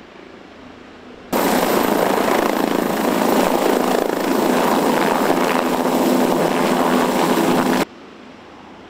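MQ-8C Fire Scout unmanned helicopter hovering close by: loud, steady rotor and turbine noise. It is fainter at the start and near the end, where the sound switches abruptly between near and distant.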